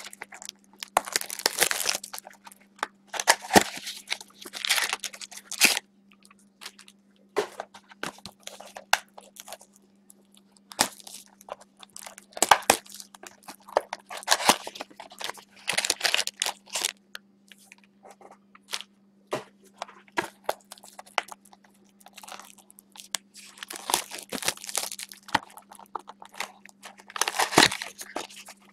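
Trading cards being flipped through and slid against one another by gloved hands: irregular rustling and scraping swishes, over a faint steady hum.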